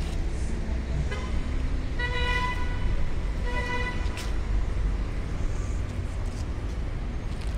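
Steady low traffic rumble with a vehicle horn tooting three times in a row, a brief first toot then two longer ones, all within the first four seconds.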